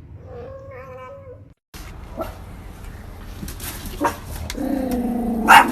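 A dog giving a short wavering whine, then, after an abrupt cut, scattered clicks and a drawn-out low whine-growl that breaks into a loud bark near the end.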